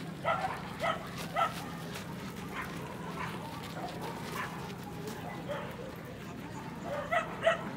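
A dog barking in short, sharp yips: three in quick succession at the start, a few fainter ones in the middle, and two more near the end, over a steady low hum.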